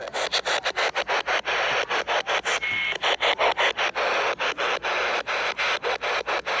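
Radio static from an off-air receiver: a steady hiss chopped by rapid, uneven dropouts, several a second.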